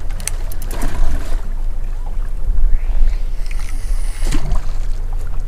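Steady low rumble of wind and water around a small drifting boat at sea, with a few light clicks from the spinning reel as it is handled.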